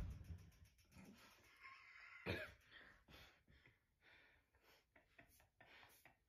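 Mostly near silence, with a faint short cough at the start and another about two seconds in.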